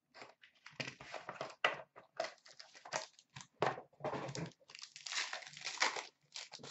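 Hockey card box packaging handled and opened by hand: irregular crinkling and rustling that goes on nearly throughout.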